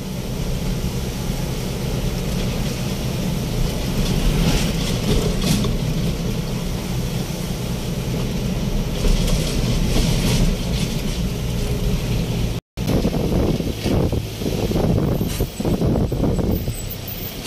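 A vehicle driving along a highway: steady engine and road rumble, which drops out for an instant about two-thirds of the way through and then turns more uneven.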